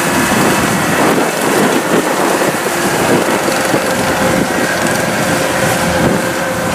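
Kubota DC-105X rice combine harvester running while it harvests, a loud, steady mechanical rush of its diesel engine and threshing machinery, with a steady whine that grows clearer about halfway through.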